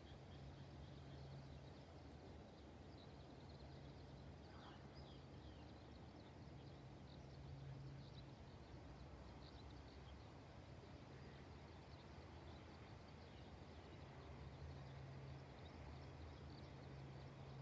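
Faint outdoor ambience: scattered short, high chirps of distant small birds over a low steady hum.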